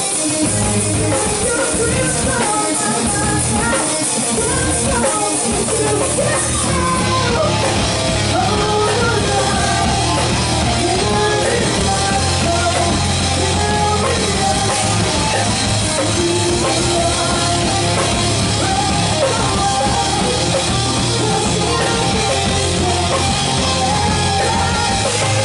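Live heavy metal band playing loud, with a female lead vocal sung over electric guitars, bass and a drum kit, as heard from the audience through the festival PA.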